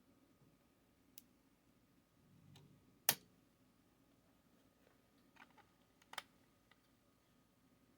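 Scattered sharp clicks and taps of small hard parts and tools being handled while taking apart a heat gun, with one louder click about three seconds in and a small cluster of clicks near the end.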